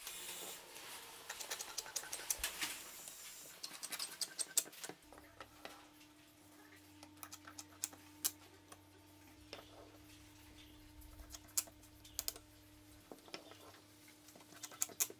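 Light clicks and taps of plywood pieces being handled and fitted together in a wooden corner-clamp jig, busiest in the first five seconds. A faint steady hum joins about five seconds in.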